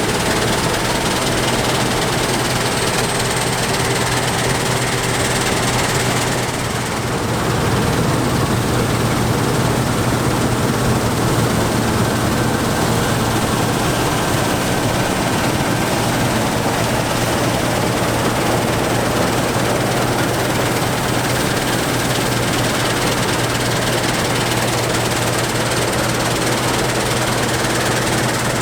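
Heavy farm machinery engines running steadily under load, with a constant low drone and a brief dip in level about a quarter of the way in.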